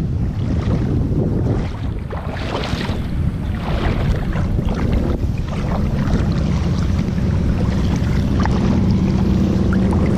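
Steady low rumble of wind buffeting the microphone, over the rush of water.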